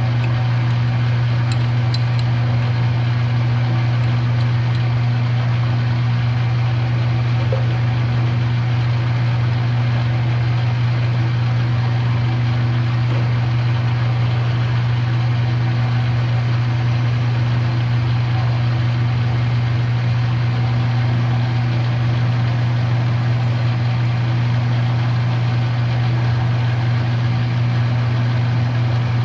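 A metalworking machine tool running steadily under power while it cuts a metal bushing, with a constant low hum and no break.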